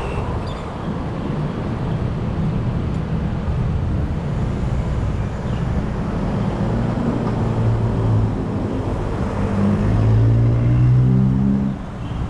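Road traffic with a vehicle engine running. About nine seconds in, an engine note climbs in pitch and grows louder, then drops away suddenly near the end.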